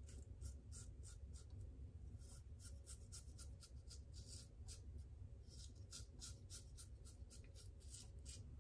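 Faint, quick scratching of a Supply single-edge injector razor blade cutting stubble through shaving lather on the upper lip and chin, in short repeated strokes, about three to four a second.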